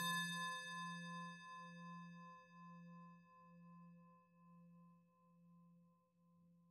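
Singing bowl struck once, then ringing and slowly fading, its low hum pulsing about once a second under several higher overtones that die away sooner.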